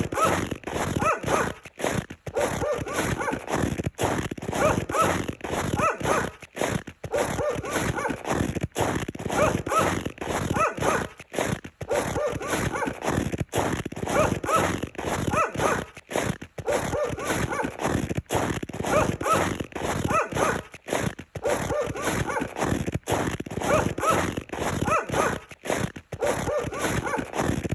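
Footsteps crunching and squeaking in snow at a steady walking pace.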